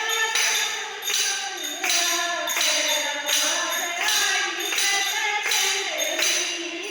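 High voice singing a Hindi devotional bhajan melody, with jingling percussion keeping a steady beat.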